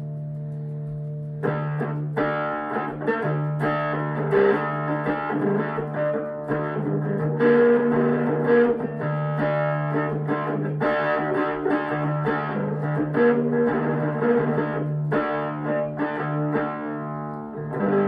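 Electric guitar tuned to drop D, played through an amplifier: a low note holds steady underneath while, from about a second and a half in, a run of picked notes and chords rings over it.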